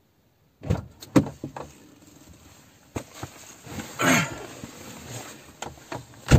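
Knocks, thumps and rustling of movement inside a car: sharp knocks about a second in and again near three seconds, a longer rustling scrape around four seconds, and the loudest knock at the very end.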